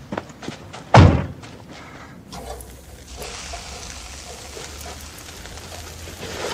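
A car door shuts with a heavy thud about a second in, after a few light clicks. Then a steady sizzle and hiss of sausages cooking on a barbecue grill.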